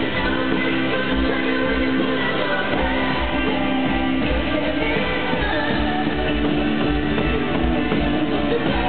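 Live country-rock band playing loud: electric guitars holding chords over drums with a steady kick-drum beat, recorded from the crowd.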